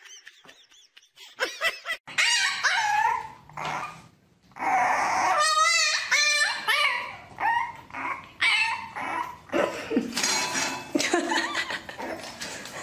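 A dog barking, yipping and whining in a string of short calls that bend up and down in pitch.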